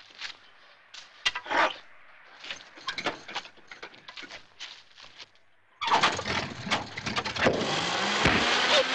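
Scattered rustles and taps of crumpled newspaper and a wooden trash-spear stick. About six seconds in, a loud, dense rushing noise with a low, wavering hum starts suddenly.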